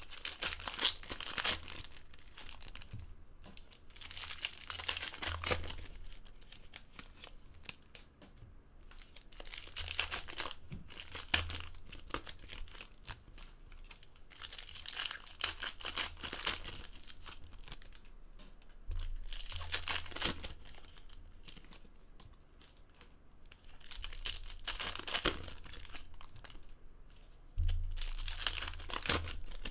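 Foil-wrapped Panini Prizm Basketball trading-card packs being torn open and their wrappers crinkled, in bursts every few seconds, between handling of the pulled cards.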